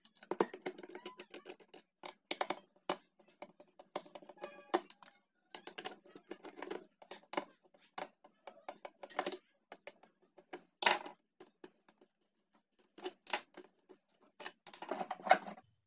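Small screwdriver turning the screws out of a plastic Bluetooth speaker's base: faint, irregular clicks and short scrapes of metal on screw heads and plastic, with gaps between them.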